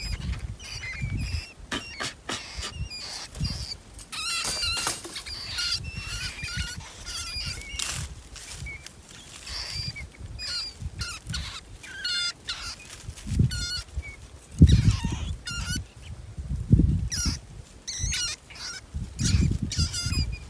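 Trapped field rats squealing again and again, short high-pitched calls over the clink and rattle of wire-mesh cage traps being shaken and knocked together, with low thumps from the handling.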